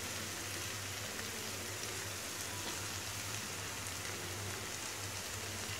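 Pan of parboiled radish leaves sizzling steadily in hot oil as they start to sauté, with a low steady hum underneath.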